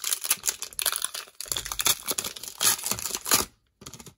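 The wrapper of a Panini Prizm bonus card pack being torn open and crinkled by hand, in uneven bursts of tearing and rustling that stop about three and a half seconds in.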